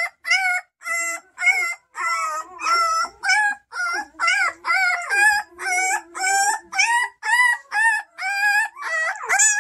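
Newborn Bernese Mountain Dog puppy crying: a rapid string of short, high-pitched squealing cries, each rising and falling, about two or three a second.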